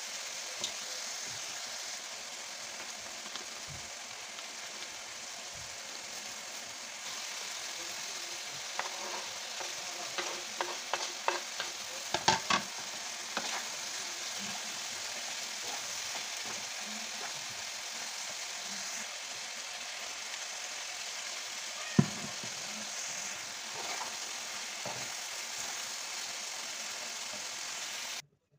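Minced meat, onions and tomatoes sizzling in a frying pan with a steady hiss, stirred with a spoon. The spoon clicks and scrapes against the pan several times between about nine and thirteen seconds in, and gives one sharp tap near twenty-two seconds.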